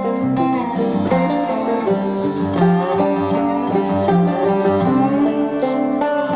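Background music: an acoustic tune of plucked string instruments in a bluegrass style, with quick picked notes.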